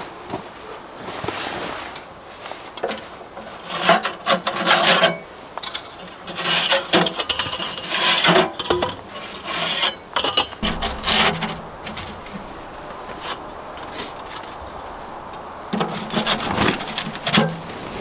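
Firewood being loaded into a small box wood stove: pieces of wood scraping and knocking against the firebox in four bursts of a second or two, with quieter handling between.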